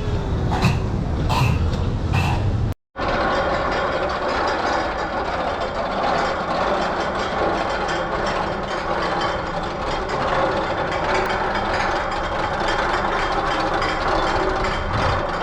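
Amusement-park ride machinery: regular mechanical clicking for about three seconds, then a cut to a different steady mechanical clatter and rumble.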